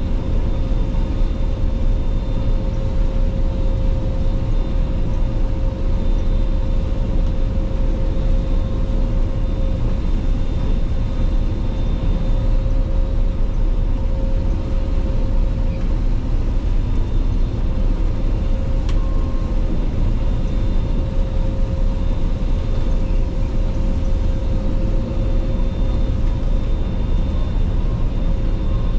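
Claas Lexion 480 combine harvester running steadily under harvesting load: a loud, unbroken machine drone with a steady whine on top. A single short click about nineteen seconds in.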